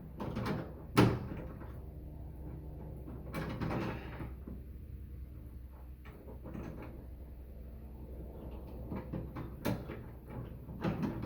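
Doorknob being spun onto the spindle rod of a mortise lock set: scattered clicks, knocks and rattles of the knob and rod, the sharpest knock about a second in, over a low steady hum.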